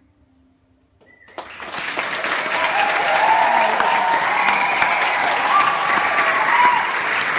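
After a moment of near silence, an audience starts applauding about a second and a half in and builds to steady, full clapping, with a few voices cheering over it.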